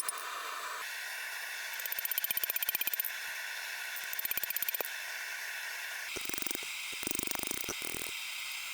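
Hand hammer blows on hot steel at the anvil, flattening a small bolster/guard piece: two quick runs of very rapid, even strikes, then heavier, irregular blows near the end, all over a steady hiss.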